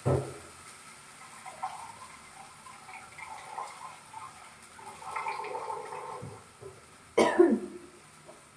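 Water running from a water purifier's tap into a plastic jug, followed about seven seconds in by a short cough.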